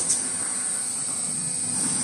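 Automated N95 cup-mask production line running: a steady mechanical din with an even, high-pitched hiss over it.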